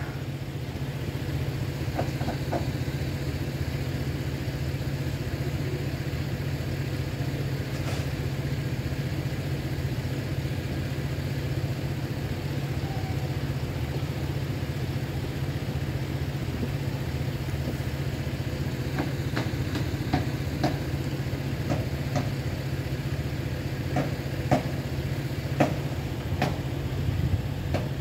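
Steady low hum of an idling engine, with a few light clicks, more of them near the end.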